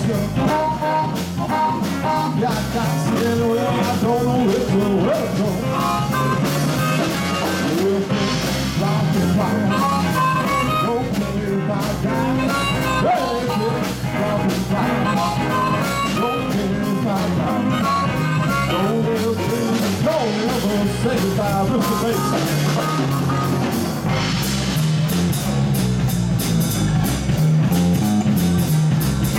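Live blues band playing: electric guitars over bass and drum kit, with a singer and harmonica on top.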